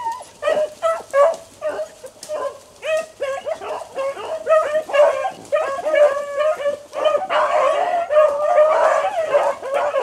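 Rabbit hounds baying as they run the track of a jumped rabbit. Separate repeated cries at first, then several dogs crying together from about seven seconds in.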